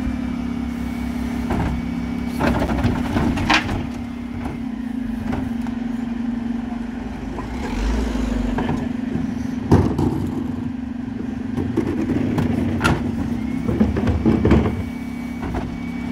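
Dennis Elite 6 refuse truck running at a steady hum with its Terberg OmniDeK bin lift at work. Sharp metal clanks at intervals come as wheelie bins are hooked on, raised and tipped into the Olympus body.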